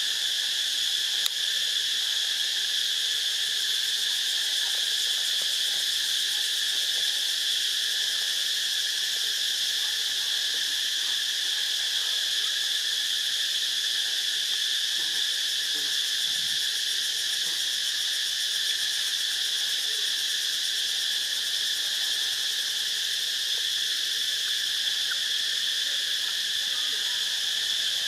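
Steady insect chorus: a continuous high-pitched buzzing drone that holds unchanged throughout.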